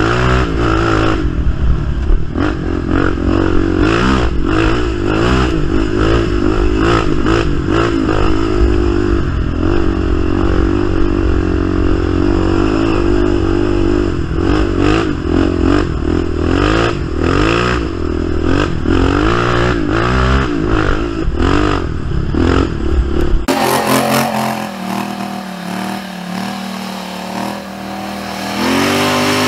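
Polaris Sportsman XP 1000 ATV engine under way, revving up and down over and over with frequent clattering knocks and a heavy low rumble. About three quarters of the way through, the sound changes abruptly to a quieter, lower engine note that climbs again near the end.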